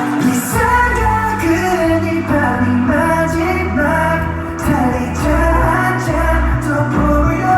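Pop song playing loudly at a sound check, with a heavy bass line that comes in about half a second in and a singing voice over it.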